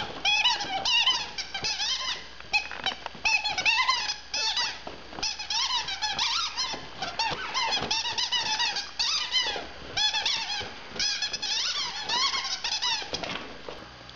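A dog's rubber squeaky toy squeaked over and over as the dog chews it: fast runs of short, high squeaks with brief gaps, stopping shortly before the end.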